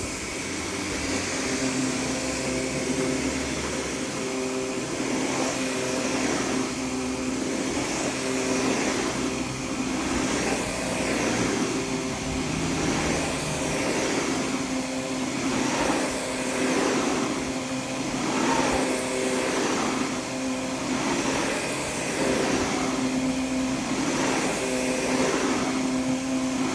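Vacuum cleaner running steadily on a rug, its sound swelling and fading in an even rhythm about every second and a quarter as it is pushed back and forth.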